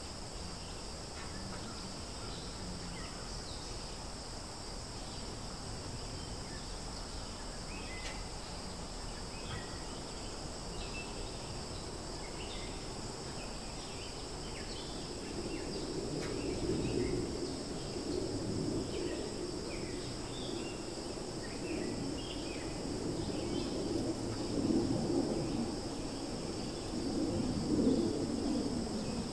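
Steady outdoor drone of insects at two high pitches, with scattered short chirps over it. About halfway through, a louder, low, rustling-like noise joins and comes and goes.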